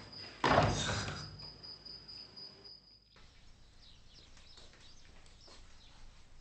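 A door slams shut about half a second in, loud and sudden, and its echo dies away over about a second, under a thin, steady, high trill. After a brief dropout the sound falls to faint room tone with soft ticks.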